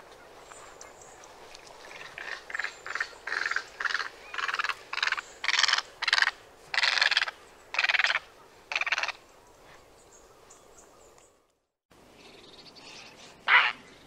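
Great egret giving a rapid series of about a dozen short, harsh calls that grow louder and then stop about nine seconds in. Near the end comes one more loud, harsh bird call.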